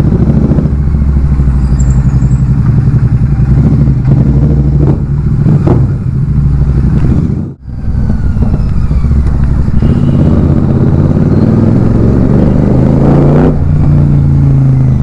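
Royal Enfield Super Meteor 650's parallel-twin engine running loud through its exhaust while riding, with a few sharp exhaust crackles. The sound drops out sharply for a moment about halfway through.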